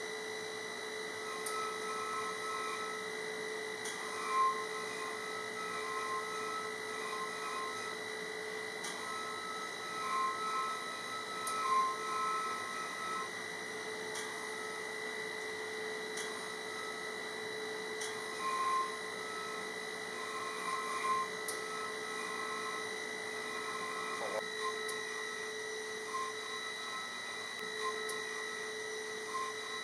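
High-speed spindle of a DATRON M8Cube CNC mill whining steadily as its end mill cuts pockets in polyurethane foam. A second, higher tone comes and goes as the cut proceeds, with faint ticks now and then.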